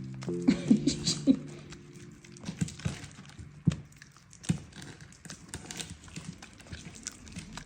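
Pets moving about and playing, with soft taps, rustling and a few short grunt-like sounds. Sustained background music chords fade out about two and a half seconds in.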